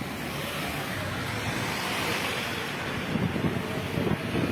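Outdoor wind noise: a steady rush of wind on the microphone that swells in the middle, with low, uneven rumbling gusts in the last second or so.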